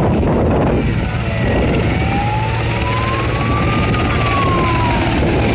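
Emergency siren wailing, its pitch rising slowly for about three seconds and then falling, over the steady rumble of a firefighting helicopter flying overhead.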